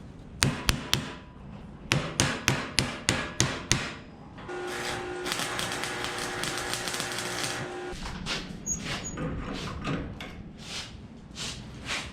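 Hammer tapping a steel canister packed with bearing balls and steel powder, to settle the powder into the gaps: three quick strikes, then a run of about four strikes a second. About four seconds in, steady welding crackle with a hum lasts some three and a half seconds as the canister is welded shut, then lighter scattered taps follow.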